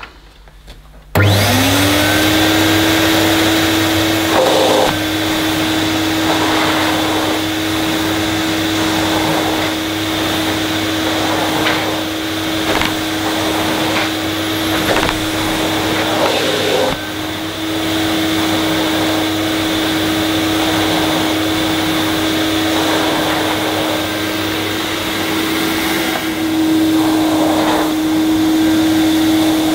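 Hoover Galaxy 1100SE cylinder vacuum cleaner switched on about a second in, its motor spinning up quickly to a steady whine and running on while its floor nozzle is pushed over carpet. The pitch shifts slightly a few times.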